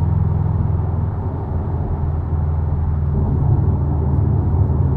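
Turbocharged 2.5-litre flat-four of a 2018 Subaru WRX STI Type RA, fitted with an Invidia Gemini R400 cat-back exhaust, heard from inside the cabin at highway speed: a steady low exhaust drone with road noise.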